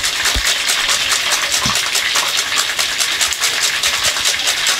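Nutmeg being grated on a flat metal hand grater: quick, even scraping strokes repeated without pause.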